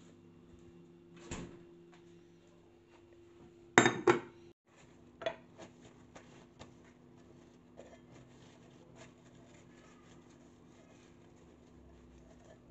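Kitchen handling sounds: a knock, then a short, loud clatter of knocks about four seconds in, followed by light scattered clinks and rubbing as a glass jar is handled and wiped with a paper towel. A faint steady hum runs underneath.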